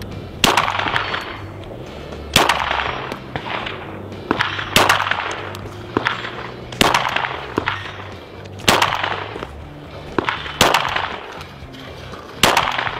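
9mm Glock pistol fired in slow, deliberate single shots, about one every two seconds, each crack followed by a short echo. Background music runs underneath.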